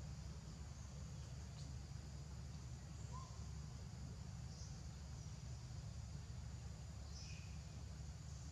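Faint outdoor ambience: a steady high insect buzz with a few short bird chirps scattered through, over a low steady rumble.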